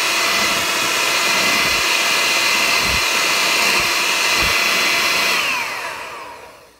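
Electric hand mixer running steadily with a motor whine, its beaters whipping egg whites and sugar into stiff meringue peaks. About five seconds in it is switched off and the whine falls in pitch and fades as the motor spins down.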